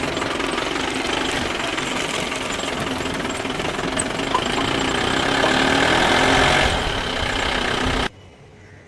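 A toy vehicle's engine noise: a steady, rattling motor sound that swells slightly near the end and then cuts off suddenly.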